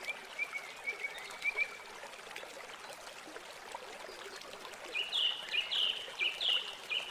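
A bird chirping in short repeated phrases, soft at first and louder from about five seconds in, over a steady trickle of running water.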